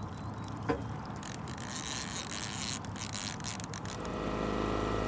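Baitcasting reel working while a hooked salmon is played: irregular clicking and rasping, then a steady buzzing tone from about four seconds in, over a low hum.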